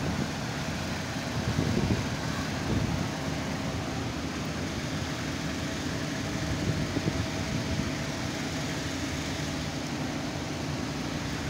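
A running machine giving a steady low hum with a faint constant tone.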